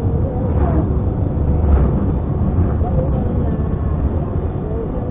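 Car driving, heard from inside the cabin: a steady low road and engine rumble. Oncoming traffic passes in the first two seconds, an oncoming lorry and then a second vehicle, each as a brief louder rush.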